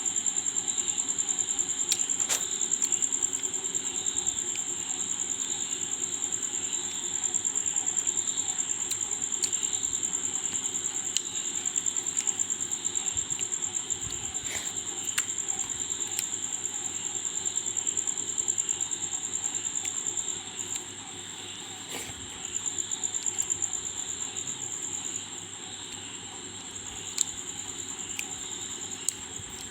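Insects chirring in a steady, high-pitched, finely pulsing drone, with scattered light clicks.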